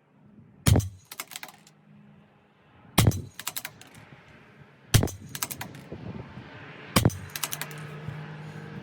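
Four shots from a CZ 457 LRP bolt-action .22 LR rifle firing Eley Subsonic Hollow rounds, about two seconds apart, each followed by a quick run of clicks. They are fouling shots through a clean barrel.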